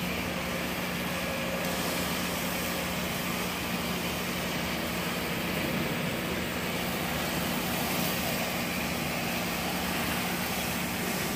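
Soft-wash roof-cleaning rig: a pump engine running at a steady hum under a continuous hiss of spray.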